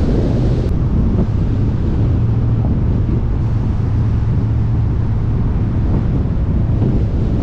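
Wind rushing over a roof-mounted camera's microphone on a car moving at road speed, over a steady low drone of engine and tyres. The hiss above it thins out abruptly under a second in.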